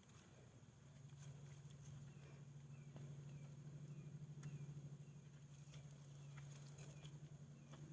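Near silence: faint scattered clicks and patter of soil being dug and loosened by hand around a sweet potato root, over a steady low hum, with a faint short high chirp repeating about twice a second.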